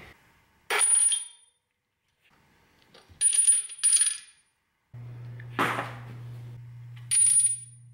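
Metal tools and small engine parts clinking together about five times, each with a bright metallic ring. A low steady hum comes in about halfway through.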